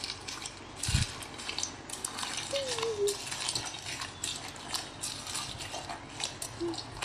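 Hands squishing and kneading slime packed with foam beads, giving a run of quick, irregular crackles and pops, with one low thump about a second in.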